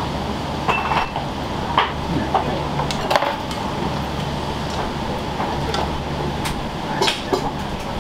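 Kitchen clatter in a ramen shop: scattered clinks and knocks of utensils and dishes over a steady low hum.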